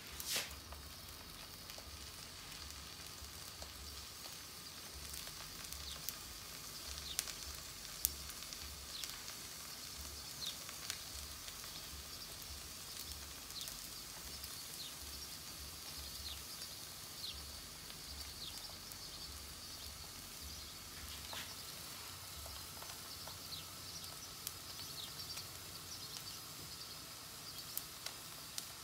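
An egg frying in oil in a non-stick pan on a portable gas camp stove: a soft, steady sizzle with scattered small pops and crackles.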